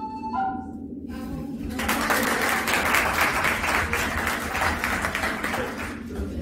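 A held, pitched note from the performer fades out within the first second, then a room full of people claps and applauds for about four seconds.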